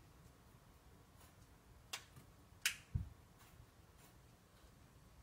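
A few short handling sounds in a quiet room: two sharp clicks about two seconds in, followed closely by a dull knock.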